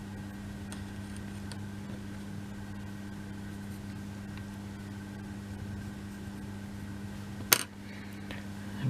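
Steady low electrical hum with faint room noise, and a single sharp tap about three-quarters of the way through.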